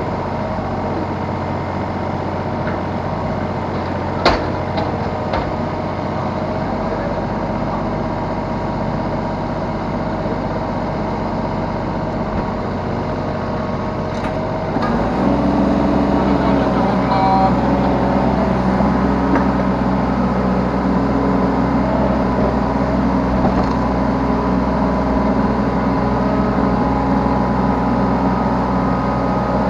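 Yanmar B3 Sigma mini excavator's diesel engine running steadily under its hydraulic work, with one sharp knock about four seconds in. About halfway through the engine picks up to a louder, higher note and holds there.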